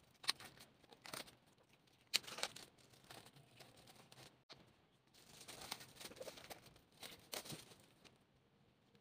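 Hands handling a cardboard K-pop album package: faint scattered rustles of paper and card with a few light taps, in several short clusters, going quiet near the end.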